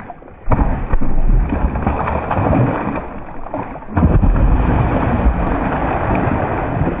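A hooked fish thrashing and splashing at the surface of shallow, weedy water. The splashing comes in two loud bouts, starting about half a second in and again about four seconds in.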